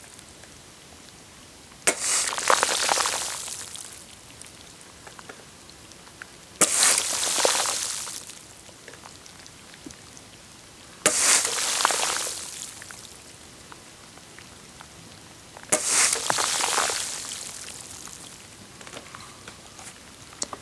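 Wet, splashy liquid sounds close on a microphone: four hissing bursts about four to five seconds apart, each starting sharply and fading over about two seconds.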